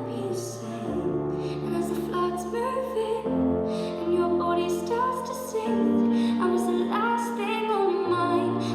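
Recorded song: a woman singing a slow melody over held low chords.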